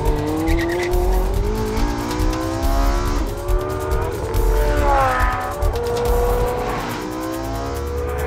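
Porsche 918 Spyder's 4.6-litre V8 revving hard under acceleration, its pitch climbing and dropping back several times as it shifts gears, with music underneath.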